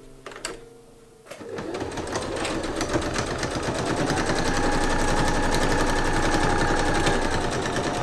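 Electric domestic sewing machine stitching a corset gusset seam. It starts about a second and a half in, speeds up, then runs steadily with a motor whine.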